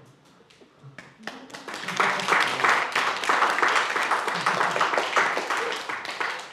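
A small group of students clapping in applause. It starts about a second in, builds quickly, then fades toward the end.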